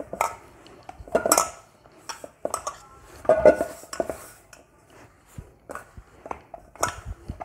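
Stiff wheat-flour dough being kneaded by hand in a stainless steel bowl: irregular knocks, scrapes and clinks as the hand and dough press against the steel.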